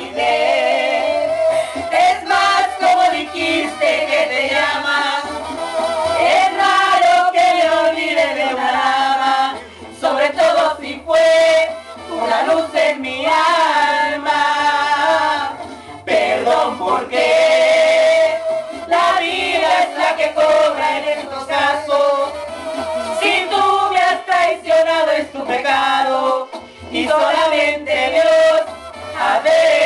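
A man and a woman singing together into handheld microphones, loud and continuous with only short breaths between lines.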